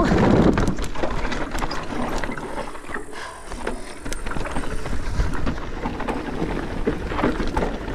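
Specialized Stumpjumper Evo mountain bike descending a rocky trail: tyres crunching over rocks and the bike rattling and clattering, with many small knocks throughout.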